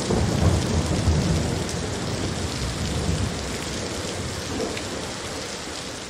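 Steady rain with low rolling thunder, the rumble strongest in the first few seconds, the whole sound slowly fading toward the end.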